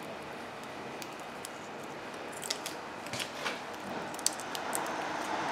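Brake pad being pressed into the metal clips of a caliper mounting bracket: a few light, sharp metallic clicks and scrapes, mostly in the second half.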